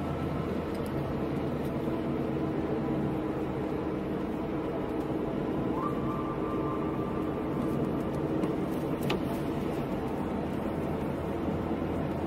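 Steady engine and tyre noise from inside a moving car on a wet road, an even low rumble with no sudden changes.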